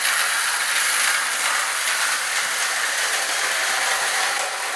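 Two wound-up clockwork toy cars from a vintage Marx Motorway set running on their track, their spring-driven gear trains giving a steady, high-pitched whirr. They run painfully slow, with no real power, the sign of a fault in the clockwork drive.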